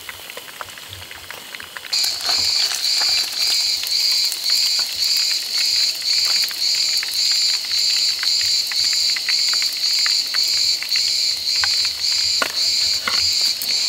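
Oil sizzling and crackling as battered trout fries in a pan. About two seconds in, a loud insect starts a high, pulsing song at about two pulses a second and carries on over the frying.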